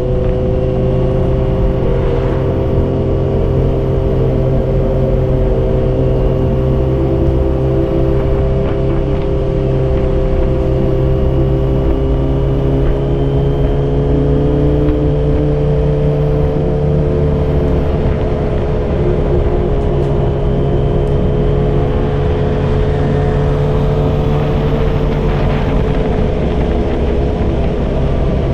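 Yamaha XJ6's 600 cc inline-four running through a Dominator GP full exhaust system with its dB killer fitted, cruising at a fairly steady engine speed while the pitch drifts gently up and down.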